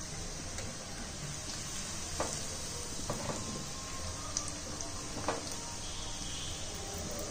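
Chegodi (rice and moong-dal flour rings) deep-frying in hot oil, the oil sizzling steadily, with a few light clicks of a metal slotted spoon and wire strainer against the pan.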